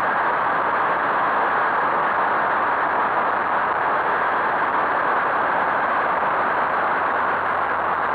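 Steady rush of wind and road noise on an onboard camera riding a Skyteam Monkey 125 cc motorcycle at speed, with no clear engine note standing out.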